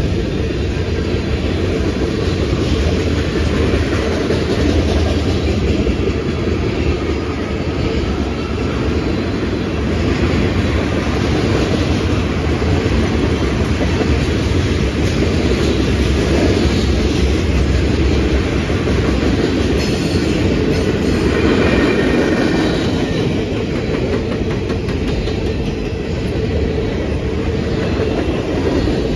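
Freight cars (tank cars and covered hoppers) rolling past close by: a steady, loud rumble and rattle of steel wheels on the rails.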